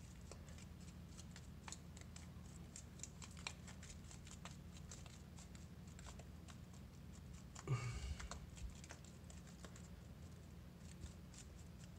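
Faint, irregular tapping and scratching of a cardboard baking-soda box being shaken so that powder sprinkles onto a glass stovetop, with one brief louder sound about eight seconds in.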